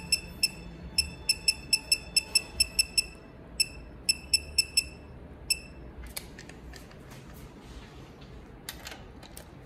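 Digital torque wrench beeping at each press of its setting button, about twenty short high beeps over five seconds as the target torque is stepped down. After that come a few scattered light clicks and knocks.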